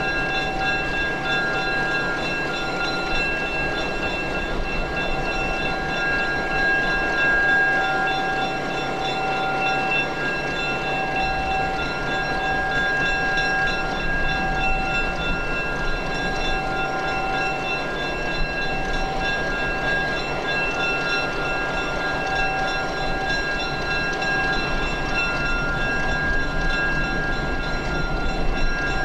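Drone propellers humming steadily in flight, a constant whine made of several fixed high tones over a hiss.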